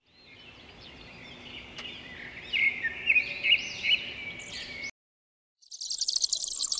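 A bird singing a run of chirps and whistled notes that grow louder, then cut off abruptly about five seconds in. After a short silence, a dense, high-pitched hiss starts.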